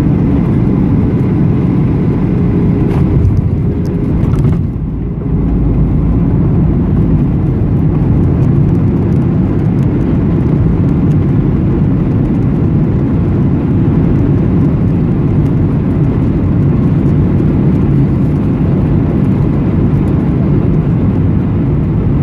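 Cabin noise of a Boeing 737-800 over the wing on landing: the loud, steady low roar of its CFM56 engines and airflow, with a brief dip and a low thump about five seconds in as the jet touches down. A steady low rumble follows as it rolls out on the runway with the spoilers raised.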